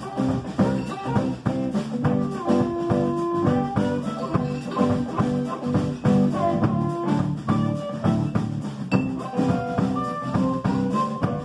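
Live blues band playing: electric guitar, electric bass and drum kit, with an amplified harmonica playing held notes over them.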